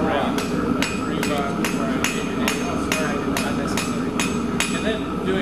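Hand hammer striking a glowing-hot iron bar on a steel anvil in a steady rhythm of about two to three blows a second, each blow ringing briefly, as the bar is drawn out to a tapered point.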